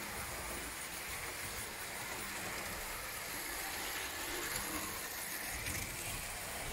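Tinplate O-gauge toy tram (Ikaria Brno) running steadily along tinplate track, with a continuous motor and wheel noise.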